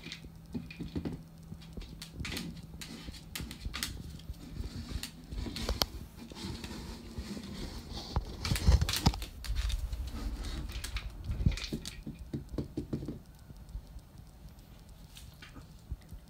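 Dogs' claws clicking on a tiled floor and a red rubber toy knocking against the tiles as a cocker spaniel noses it around. The clicks and knocks come irregularly, busiest from about eight to twelve seconds in, and thin out after that.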